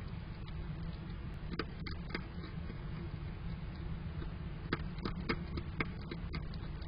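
European hedgehog eating dry kibble from a terracotta dish: irregular sharp crunches and clicks, most of them about two seconds in and again in the second half.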